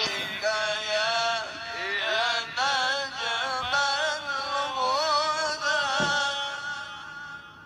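A male qari's voice through a microphone, singing a long melismatic line in the style of Quran recitation (tilawah), with constantly wavering, ornamented pitch. It trails off near the end.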